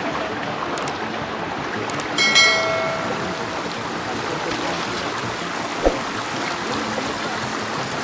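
Steady rushing of a stream's flowing water. About two seconds in there is a short, steady high-pitched note, and there is a single knock near six seconds.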